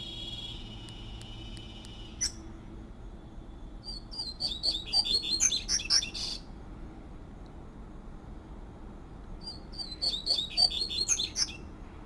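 Male double-collared seedeater (coleiro) singing its fluted "tui-tui" song: two quick twittering phrases of high notes, one about four seconds in and one about ten seconds in, each lasting about two seconds. A steady high tone with faint clicks comes before them and cuts off about two seconds in.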